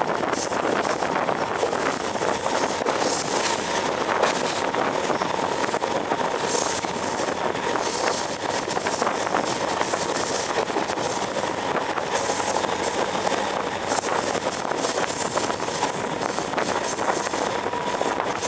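Sri Lanka Railways Class S11 diesel multiple unit running, heard from beside its open side: a steady rush of wheels on rail with dense, fast clatter, and a faint steady whine under it.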